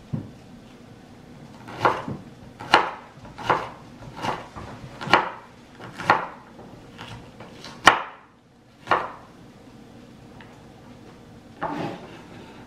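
Cleaver chopping an onion on a bamboo cutting board: about ten sharp knocks of the blade on the board, roughly one a second, then a short pause and a softer stroke near the end.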